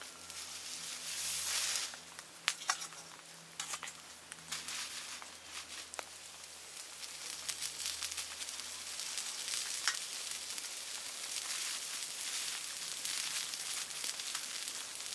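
Wood campfire crackling with many sharp pops and clicks, and a plastic bag rustling as it is handled about a second in.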